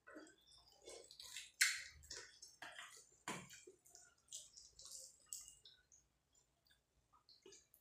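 Fingers tearing apart a chicken leg in curry gravy in a steel bowl, making irregular short squishing sounds. The loudest comes about one and a half seconds in, and they grow sparse in the last two seconds.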